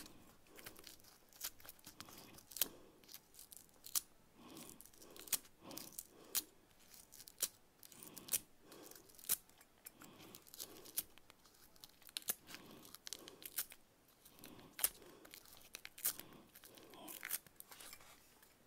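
Straight-bladed craft knife scraping and carving a thin surface layer out of a strip of Styrodur extruded polystyrene foam: quiet short scraping strokes, about one or two a second, with small sharp crackles and clicks.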